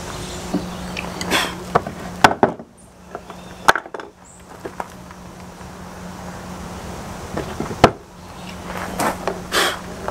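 Wooden buck saw frame pieces, cut from pruned branches, handled and knocked against a wooden workbench: several sharp wooden knocks and short rustles of handling, over a steady low hum.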